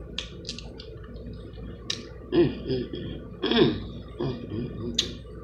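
A person eating sauce-covered seafood boil close to the microphone: several sharp wet smacks and clicks of lips and mouth, with two short hummed murmurs about midway.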